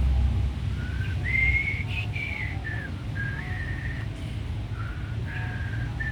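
A person whistling a short tune: a string of clear notes that step up and down in pitch, over a low background rumble.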